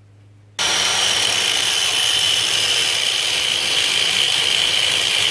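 A power tool cutting through the metal arm of a Hurst shifter, starting abruptly a little after half a second and then running steadily: a loud hiss with a high whine over it.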